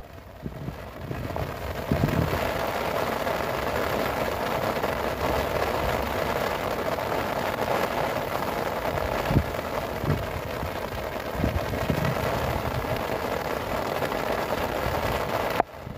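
Heavy rain pouring down steadily, with a few low thumps now and then.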